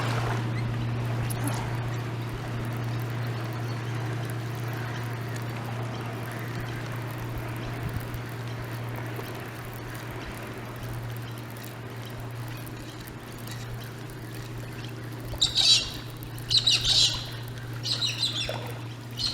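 Birds squawking: about four short, harsh calls in the last few seconds, over a steady low hum.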